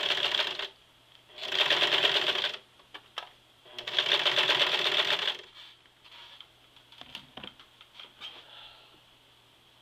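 Sewing machine stitching through denim in three short runs of rapid stitches, the first ending about half a second in and the last stopping about five and a half seconds in. A few faint clicks follow.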